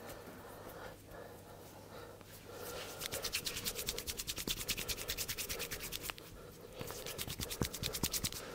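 Hands rubbing briskly back and forth over hair and scalp in a head massage, about ten strokes a second. It comes in two spells, one starting about three seconds in and a shorter one near the end.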